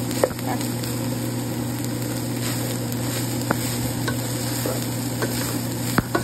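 Ground pork with shredded cabbage and carrots sizzling in a pan as it is stirred, with a few sharp clicks of the utensil against the pan.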